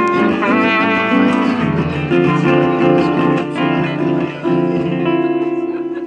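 Live acoustic guitar and trumpet playing a swing tune together. The notes are held and wavering, and a long held note fades near the end.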